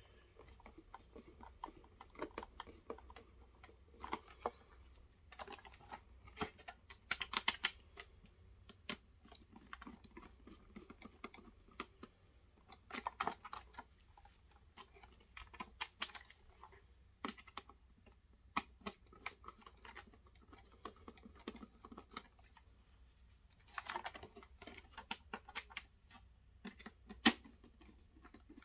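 Hand screwdriver driving the four screws into the bottom of a desk fan's base: faint, irregular clicks, taps and short scrapes of screws and parts being handled, with a few louder bursts of handling and one sharp click near the end.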